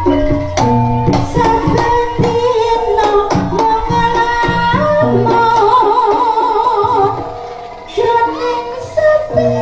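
Live Javanese jaranan music: struck gamelan metallophones and gongs with drum strokes in a steady rhythm, and a wavering sung line rising above them in the middle. The music eases off briefly just before a strong stroke near the end.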